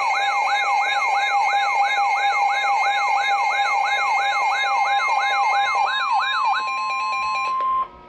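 Emergency alert siren tone: a rising electronic whoop that repeats about three times a second over steady alarm tones. The sweeps stop about six and a half seconds in, leaving one steady tone, which then cuts off abruptly just before the end.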